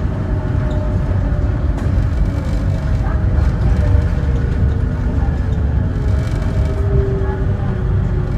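Rubber-tyred Mitsubishi Crystal Mover light-rail train running along its guideway, heard from inside the car: a steady deep rumble with faint whining tones that drift slightly in pitch.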